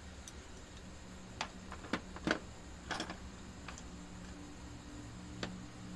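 A few faint, scattered clicks and knocks over a low steady hum.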